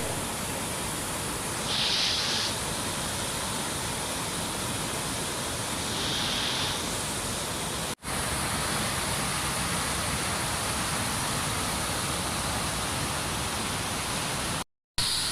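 Steady rush of water pouring down the reservoir dam's waterfall and overflow, running full after a typhoon. The sound cuts out abruptly for a moment about halfway through and again near the end.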